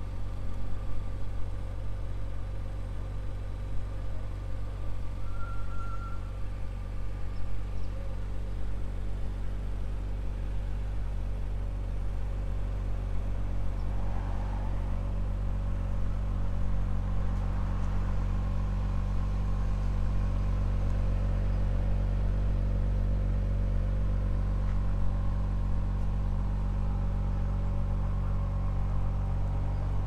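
Audi RS5 Sportback's 2.9-litre twin-turbo V6 idling steadily, with no revving. It grows a little louder from about the middle on.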